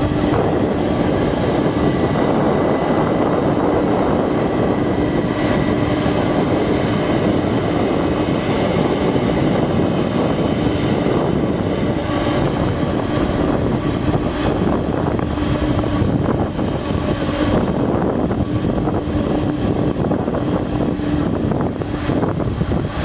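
Boeing 747-400 LCF Dreamlifter's four turbofan jet engines running at taxi power: a steady rushing jet noise with a high, even whine laid over it.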